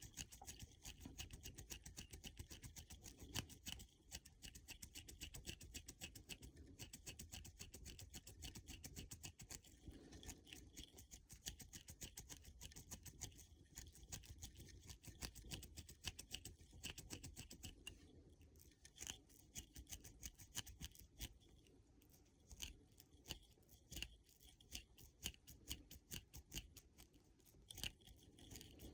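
Faint, rapid scratchy clicking of a small crochet hook working in and out of a dreadlock, with the hair crackling as it is pulled through. The clicking pauses briefly a couple of times past the middle.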